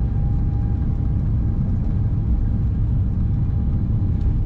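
Airbus A350-900 cabin noise during the take-off roll: the Rolls-Royce Trent XWB engines at take-off power and the rumble of the landing gear on the runway, a steady, loud low rumble with a faint steady hum above it.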